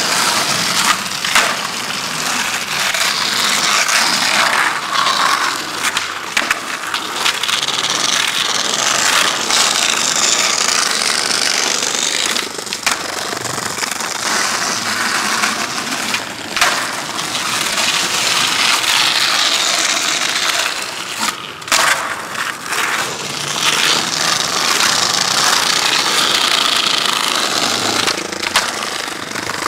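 Skateboard wheels rolling on concrete, a steady rough rumble broken every few seconds by sharp clacks of the board striking the ground.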